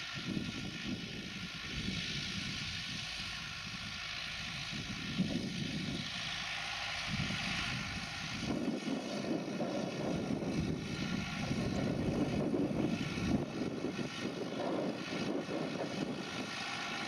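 Farm tractor's diesel engine running steadily at working revs in the field. It grows somewhat louder about halfway through.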